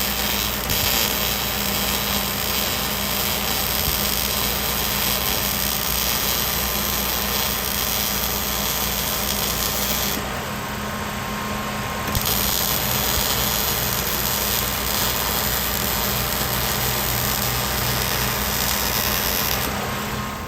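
Steady power-tool noise from metalwork on a trailer: a hiss over a steady low hum. The hiss drops out for about two seconds about ten seconds in, then resumes, while the hum runs on.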